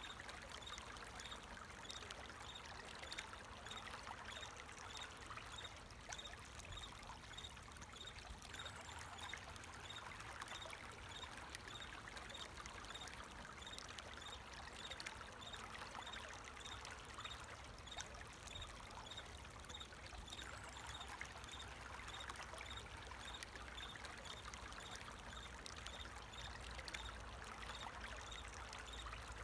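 Water flowing and trickling steadily, with crickets chirping in an even, repeating rhythm behind it.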